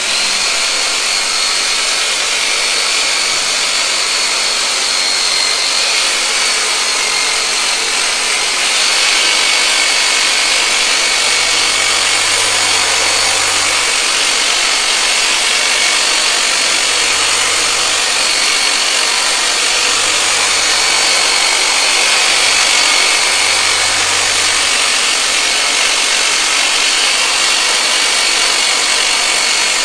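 The motor of a powered chiropractic treatment device called the "turbinator" running steadily: a loud, even whir with a high whine, a little louder from about nine seconds in.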